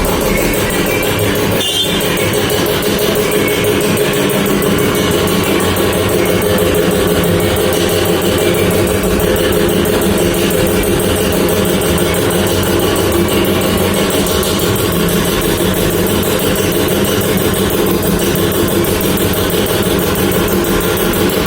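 Background music with a steady, unbroken texture.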